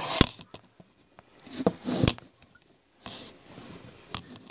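Close-up handling noise on a phone microphone: bursts of rustling and a few sharp knocks as the phone is moved and bumped.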